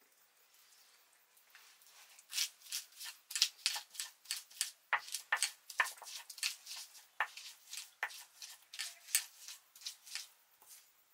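Stone pestle crushing garlic, ginger and green chili against a flat stone grinding slab (Nepali silauto and lohoro) into paste: a quick run of short crunching strokes, about three a second, starting about two seconds in.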